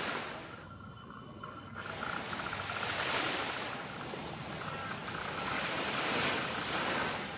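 Waves breaking on a beach, the surf swelling and falling back about every three seconds, with wind buffeting the microphone and a faint steady whine underneath.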